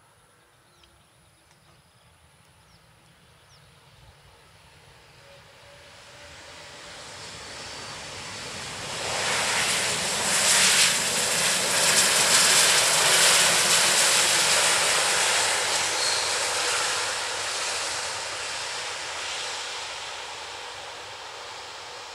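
Jet noise from an Airbus A330-300's Rolls-Royce Trent 700 engines during its landing rollout on a wet runway. It starts faint, swells sharply to a loud peak about nine seconds in as the airliner passes, then slowly fades.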